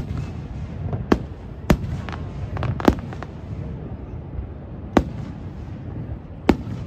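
Aerial fireworks shells bursting overhead: about seven sharp booms at uneven spacing, several bunched together in the first three seconds, then two more, over a low crowd murmur.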